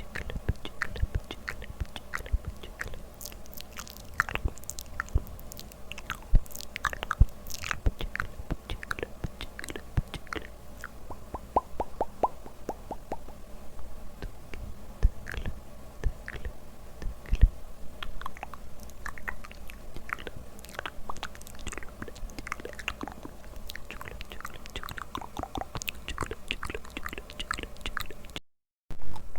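Close-miked ASMR mouth sounds: irregular wet clicks and smacks of lips and tongue. About halfway through comes a quick run of even tongue clicks, and near the end the sound cuts out briefly.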